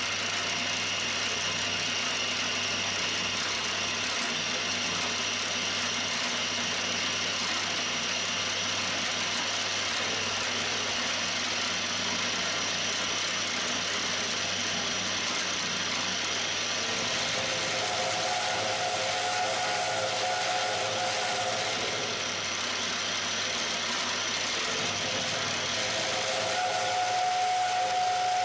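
Milling machine end mill cutting across the end of a metal block held in a vise, a steady hiss of spindle and cut. A steady pitched tone joins in for a few seconds past halfway and again near the end.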